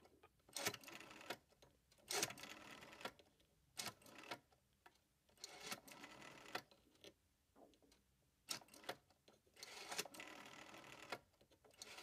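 Rotary telephone dial being pulled round and released, digit after digit. Each return runs as a short, faint whirring rattle of pulse clicks, about six in all with short pauses between.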